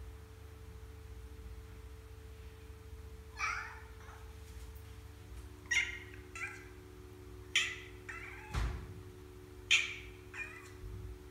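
Domestic tabby cat meowing repeatedly: about seven short meows, the first about three seconds in, with a dull knock between them about two-thirds of the way through.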